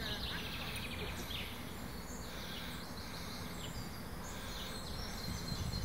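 Small birds chirping and twittering in short scattered calls over a steady low outdoor background rumble.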